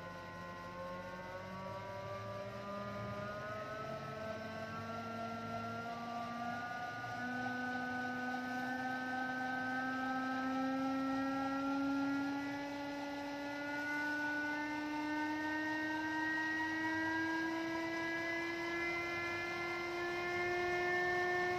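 Revolt electric motorcycle's drive motor whining as the rear wheel spins free on the centre stand, a blend of several tones that climb slowly and steadily in pitch as the speed builds from about 30 to over 60 km/h.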